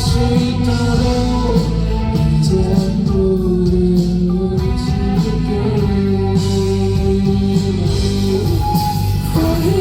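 A rock band playing live: electric guitar over bass and drums, loud and continuous.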